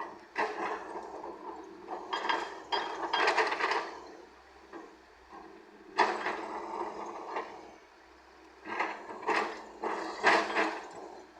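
Steel bucket of an earthmoving machine clanking and scraping as it digs and tips murram gravel. The rattling clatter comes in irregular bursts a few seconds apart.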